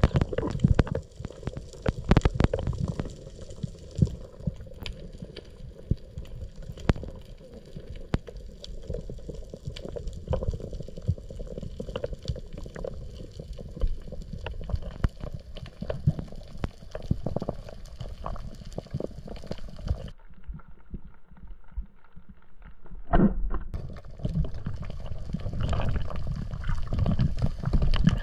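Underwater sound picked up by a camera in a waterproof housing: a low, muffled rumble of moving water with many sharp clicks and crackles throughout. The higher sounds drop away for a few seconds, and a sudden louder burst comes about two-thirds of the way through.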